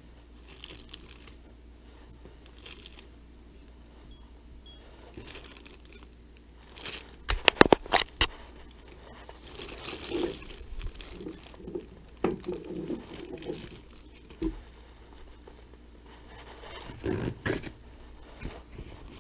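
Plastic parts bag crinkling and rustling as hands handle it, with a quick run of loud, sharp clicks about seven seconds in, then more bouts of crinkling.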